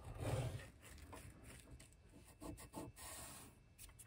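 Hobby knife drawn along a steel rule, scoring through a thin sheet of wood veneer in a short scraping cut at the start. Then faint rubs and light taps as the cut veneer piece is handled and laid against the cabinet.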